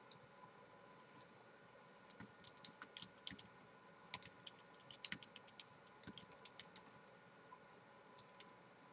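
Typing on the chiclet keys of a Logitech K750 wireless solar keyboard: a run of light key taps starting about two seconds in and lasting about five seconds, then a few scattered taps near the end.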